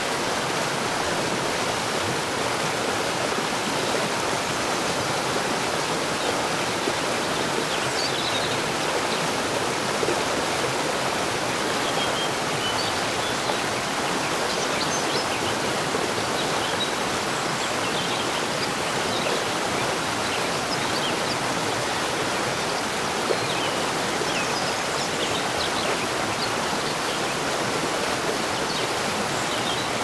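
Waterfall rushing steadily, water pouring down a tall rock face onto boulders, an even sound without breaks. Faint short high chirps come and go over it.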